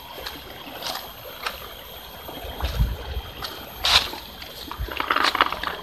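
Footsteps on dry leaf litter, irregular rustles and snaps, over a shallow stream trickling steadily; the loudest rustle comes about four seconds in, with a burst of rustling near the end.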